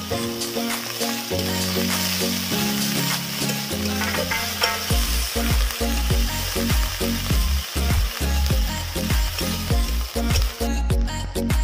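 Onions and green chillies sizzling in hot oil in a metal wok while a metal spatula stirs and scrapes them. The sizzle drops away about a second before the end. Background music plays under it, and a steady beat comes in about halfway.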